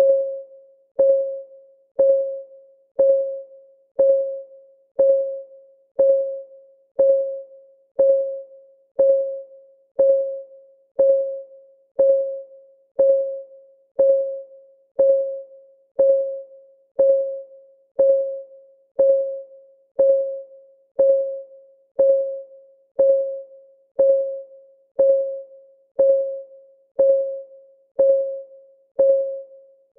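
Countdown timer's clock-ticking sound, one tick per second with perfectly even timing. Each tick is a sharp click with a short pitched ring that fades within about half a second.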